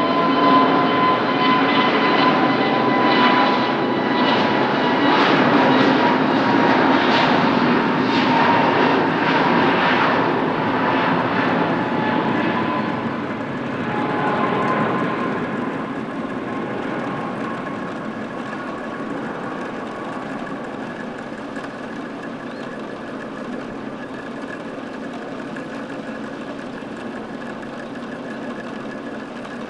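Airbus A321neo jet with CFM LEAP-1A turbofans at takeoff thrust: a loud jet roar with a high whine that sinks slightly in pitch as the plane goes past. The roar is strongest in the first half, then fades steadily as the aircraft climbs away.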